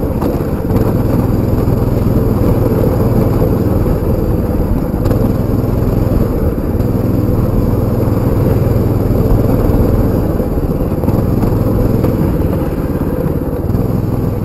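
Baja 200 dirt bike's engine running while being ridden, the engine note dipping and rising every few seconds with the throttle.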